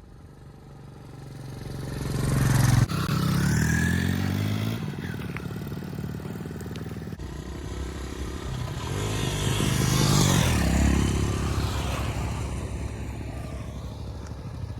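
Motorcycle engines passing by: one swells up and cuts off abruptly about three seconds in, then another approaches, is loudest about ten seconds in, and fades away.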